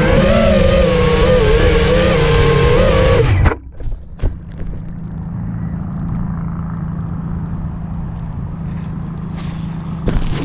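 A motor whines loudly with a wavering pitch, then cuts off suddenly about three and a half seconds in. A quieter steady low hum and a few clicks follow.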